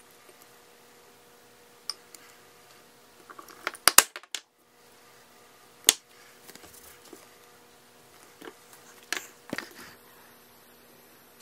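A few isolated sharp knocks of a hammer striking a leather stamp into dampened leather on a cutting mat. The loudest pair comes about four seconds in, with single strikes near six seconds and again shortly before the end.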